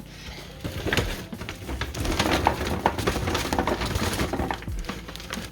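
Rustling and irregular knocks of freshly dug potatoes and soil being handled, over background music.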